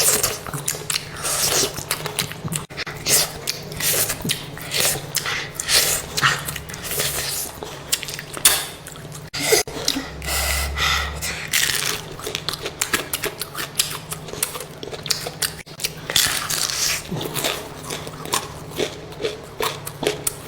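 Close-miked eating sounds: chewing, with a rapid, irregular run of short wet mouth clicks and smacks.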